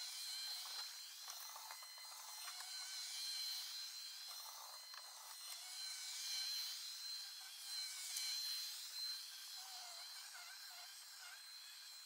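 Roborock S4 Max robot vacuum running on carpet at max suction, heard sped up: a steady high whine with slowly sweeping tones above it.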